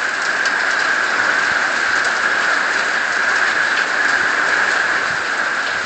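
Heavy tropical-storm rain falling in a steady hiss, driven by gusty wind.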